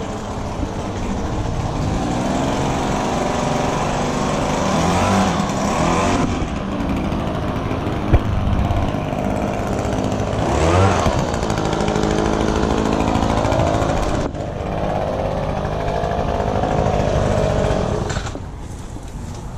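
Handheld engine leaf blower running at full throttle, revving up and back down twice, then easing off near the end.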